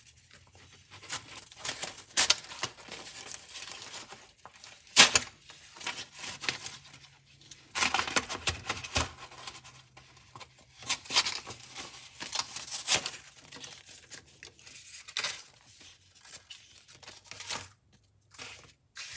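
Gerber EAB stainless folding utility knife's fresh replaceable blade slicing through paper in an irregular series of short cutting strokes, with paper rustling between them.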